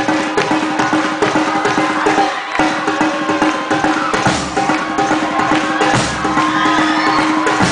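Batucada samba percussion ensemble playing live: a dense, steady drum rhythm of low drums under sharp, high, wood-block-like strikes, with a brief dip about two and a half seconds in.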